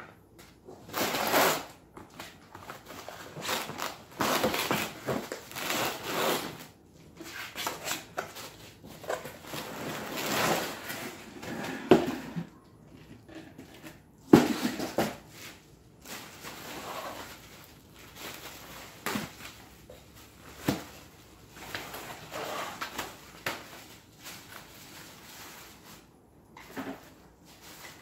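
Cardboard shipping box being opened and handled while plastic wrapping rustles and crinkles around a folded lounge chair being unpacked, with a few knocks; the sharpest knock comes about fourteen seconds in.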